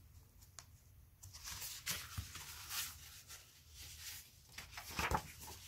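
Pages of a paperback picture book being turned and handled: faint paper rustling starting about a second in, with a few light clicks near the end.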